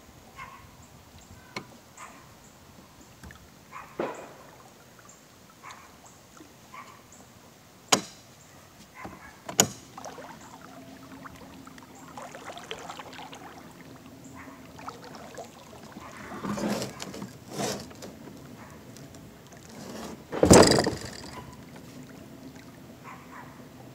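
Kayak moving under a small 17-pound-thrust electric trolling motor: water against the hull with a faint steady hum and scattered sharp knocks. The loudest is a thump about twenty seconds in.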